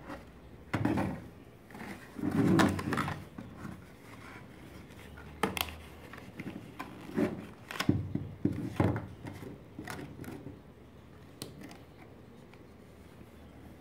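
White paperboard box being folded and assembled by hand: the card rubs and scrapes as flaps are creased and tucked in, with irregular sharp clicks. The loudest rubbing comes in two bursts, a couple of seconds in and again about eight seconds in.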